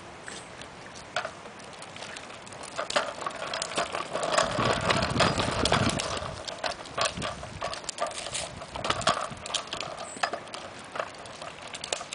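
Hard plastic wheels of a toddler's tricycle clicking and rattling as they roll over a concrete sidewalk, in irregular clicks. A louder low rushing noise comes in between about four and six seconds in.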